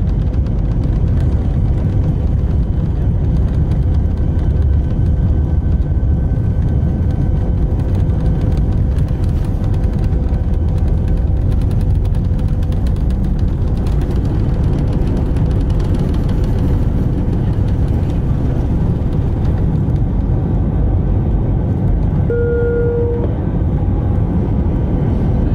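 Airbus A319 engines at takeoff thrust, heard inside the cabin as a loud, steady roar with a low rumble and a faint steady hum during the takeoff run. About twenty seconds in the highest hiss thins out as the wheels leave the runway, and a short beep sounds a little later.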